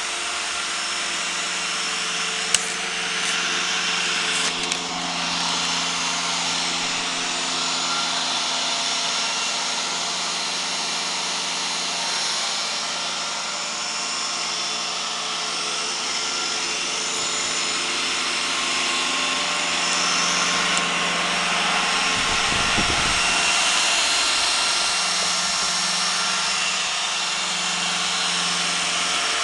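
iRobot Roomba 980 robot vacuum running: a steady motor and brush whir with several steady tones. There is a sharp click a couple of seconds in and a brief low rumble about three quarters of the way through.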